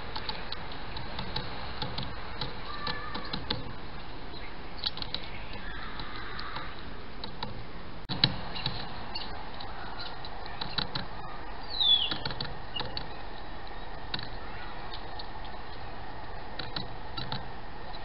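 Great tit pecking at peanuts in a wire-mesh feeder: irregular light clicks and taps of its bill on the shells and the metal mesh over a steady hiss, with one short falling chirp about two-thirds of the way through.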